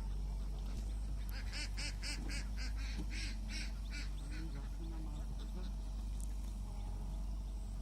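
A bird calls in a quick series of short notes, about four a second, from about one and a half to four seconds in, over a steady low hum.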